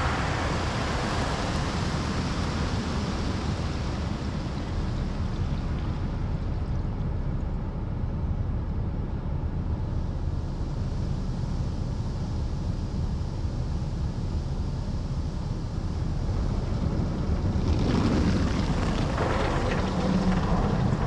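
Automatic car wash heard from inside the car: a steady rush of water spray and cloth brushes washing over the body and windshield, over a low machinery rumble. It grows louder and brighter near the end.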